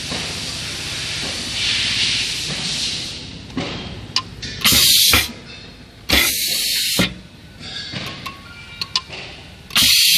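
Compressed air hissing steadily from a pneumatic heat press's air fittings, then three short, sharp blasts of escaping air, the last near the end.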